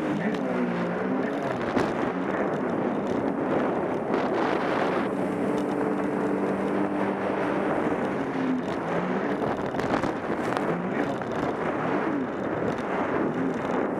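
Sea-Doo RXP-X personal watercraft's supercharged engine revving up and down as it runs over and jumps boat wakes, the pitch dipping and climbing again several times. Wind and spray rush over the microphone throughout.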